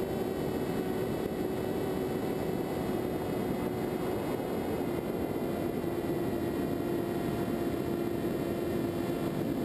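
Electric motor and propeller of a Skywalker FPV model plane running steadily in flight, a steady whine over rushing wind noise, its pitch easing slightly about halfway through.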